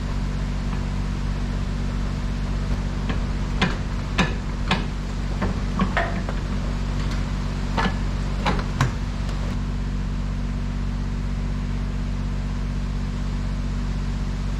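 Scattered metal clanks and knocks, about eight in a cluster between a few seconds in and the middle, as hands and tools work at the truck's transmission top cover, over a steady low hum and hiss.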